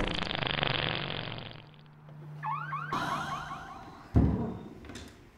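A long, loud fart with a fast flutter, fading out over about a second and a half. About two and a half seconds in, a car alarm chirps in quick repeated rising whoops, and a sudden thump follows just after four seconds.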